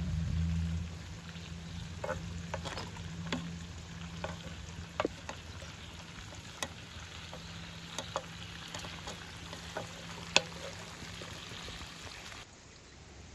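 Walnut, pomegranate-seed and onion mixture with pomegranate paste sizzling in a metal pan over a wood fire. Clicks and knocks come about once a second as a wooden spoon stirs against the pan. The sizzle drops off suddenly near the end.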